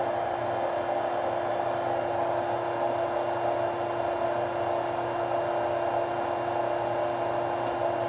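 Cincinnati-Milacron R-77 universal cylindrical grinder running in its automatic plunge cycle: a steady machine hum with one constant tone and no change in level.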